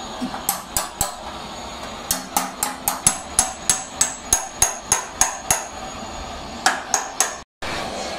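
Small hammer tapping the metal top tank and header seam of a truck radiator, partly through a steel punch, about three to four ringing strikes a second in short runs with brief pauses. The tapping stops abruptly near the end.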